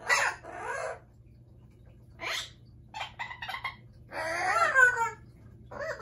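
Amazon parrot calling in short bursts: two quick calls at the start, a brief call after about two seconds, a fast run of clicking notes around three seconds, then a longer wavering call near the end of the fifth second, the loudest of them.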